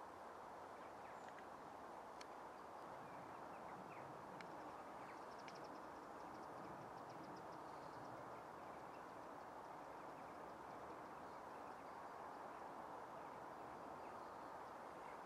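Faint outdoor ambience: a steady low hiss with a few faint, high bird chirps, and a short rapid trill about five seconds in.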